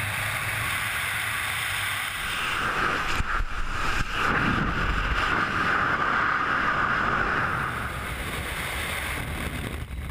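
Freefall wind rushing over the wrist camera's microphone during a tandem skydive: a loud, steady rush that eases a little near the end.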